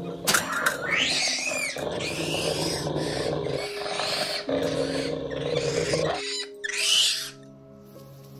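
Monkey screeching and shrieking in repeated loud bursts, over a low sustained musical score. About seven seconds in, the screeching stops and only the quiet held notes of the score continue.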